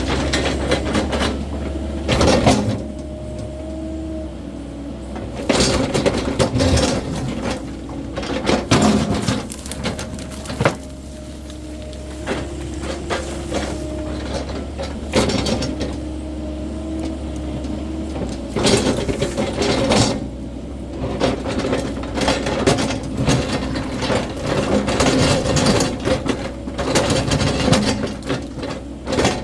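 Cat 308E2 mini excavator's diesel engine running steadily under working load, its pitched drone shifting up and down, with repeated sharp knocks and cracks as the machine digs and clears.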